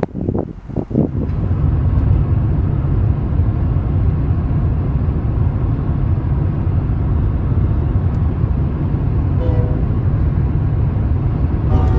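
Wind buffeting the microphone for about a second, then a steady low rumble of a moving car's road noise mixed with a passing BNSF diesel freight train that it paces. Right at the end a multi-note locomotive horn begins to sound.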